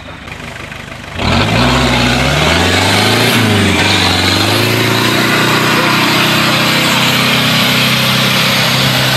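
Off-road Range Rover engine under hard revs, starting suddenly about a second in. Its pitch climbs and dips, then holds steady at high revs as the vehicle drives up a grassy slope.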